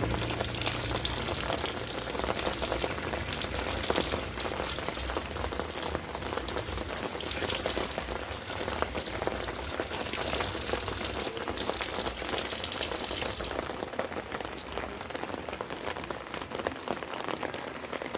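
Light rain falling, a dense crackle of drops hitting surfaces. The high hiss of the rain thins out about three-quarters of the way through.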